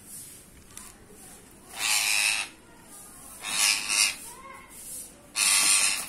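Green parrot giving three loud, harsh screeches, each about half a second long, spaced a second or two apart, as it is handled in a wire cage.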